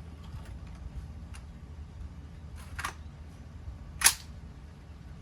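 A single sharp rifle shot from an AR-15 carbine firing 5.56 near the end, preceded about a second earlier by a fainter sharp crack.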